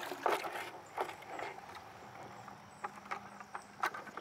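Plastic five-gallon buckets being dipped into a shallow creek and filled: splashing and sloshing water, loudest in the first second, with a few sharp knocks of bucket and handle later on.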